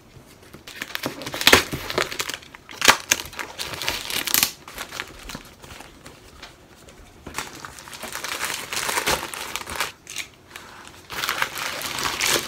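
Plastic courier mailer bag crinkling and tearing as it is cut open with a box cutter and a boxed tripod is pulled out of it. The rustling comes in irregular bursts, with a couple of sharp snaps in the first few seconds.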